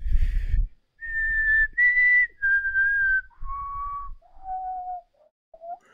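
A man whistling through pursed lips: a short puff of breath, then a run of held notes, the first two high, the rest stepping down in pitch one after another, with breath noise on the microphone under each note.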